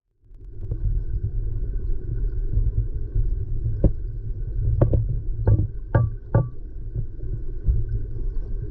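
Muffled low rumble of creek water flowing past a camera submerged in its waterproof housing. About five sharp clicks fall in the middle.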